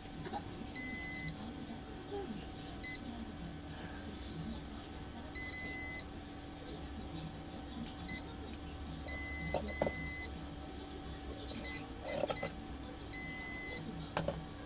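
Continuity buzzer of a clamp multimeter beeping on and off, in brief chirps and beeps of about half a second, as the test probes touch the soldered joints on a small circuit board. Each beep shows that the soldered connection conducts.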